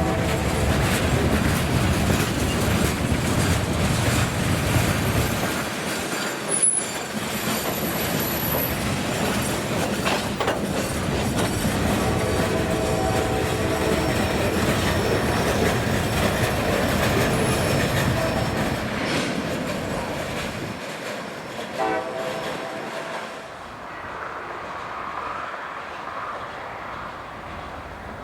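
CSX freight train rolling past with its wheels clattering over the rails, the locomotive horn sounding a long blast partway through and a short one about 22 seconds in. The train noise fades over the last few seconds.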